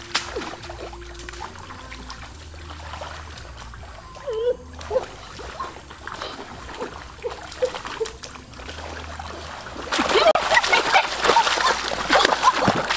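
Water splashing and trickling, with scattered small knocks and drips, turning into loud, busy splashing for the last three seconds.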